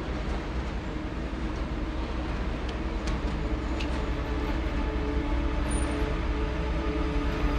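Steady rumbling noise of a passing vehicle, growing slowly louder.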